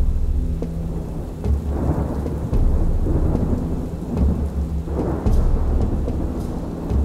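Thunderstorm: several rolls of low thunder swelling and fading over a steady hiss of rain.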